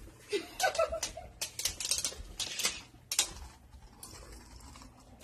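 Cho-Z Valkyrie and Geist Beyblade tops spinning and colliding in a plastic stadium: rapid, irregular plastic clicks and clacks that thin out after about three seconds.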